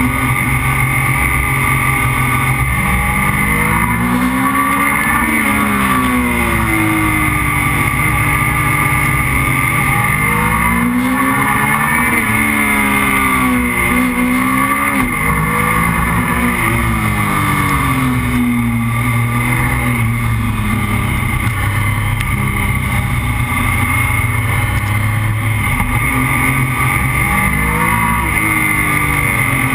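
Motorcycle engine pulling hard through a series of bends, its pitch rising and falling several times as it is revved and eased off, under steady wind and road noise.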